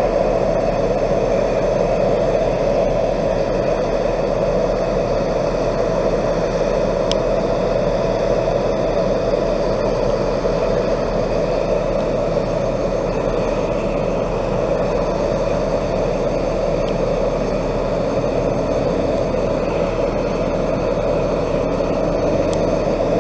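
Steady drone of a diesel train's engine idling at a station platform.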